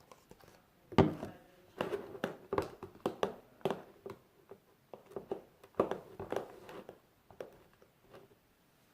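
Homemade slime being mixed or worked by hand: irregular sticky squishes and taps, some with a brief ring like a container being struck.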